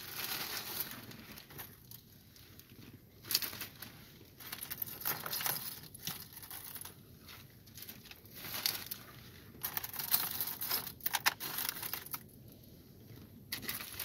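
Thin plastic bag rustling and crinkling in irregular bursts as small items are handled over it, with a few sharp clicks mixed in.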